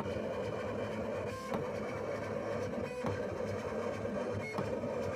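Vinyl plotter running, its cutting head whirring steadily as it cuts star shapes into black vinyl, with three sharp clicks spread through the cut.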